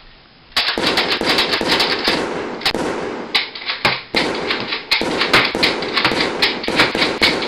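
Rapid gunfire sound effect, like machine-gun fire, starting suddenly about half a second in and going on with only brief gaps, several shots a second.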